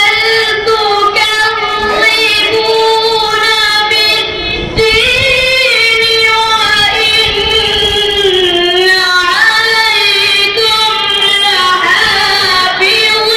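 A boy reciting the Quran into a microphone in melodic tilawat style, holding long notes and bending them in ornamented runs. There is a brief pause for breath about four seconds in.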